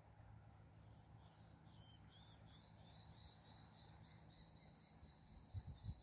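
Near silence, with faint high-pitched chirping from a small animal. It starts about a second in and goes on as quick repeated calls, several a second. A few low thumps come near the end.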